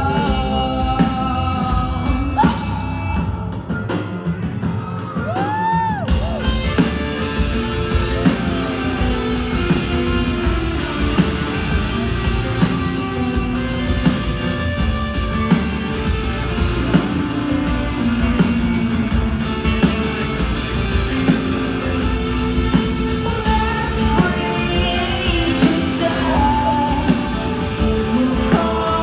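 Live rock band playing, with singing, drums and guitar, in a large hall. About four seconds in, the bass and drums drop away briefly, then the full band comes back in about six seconds in.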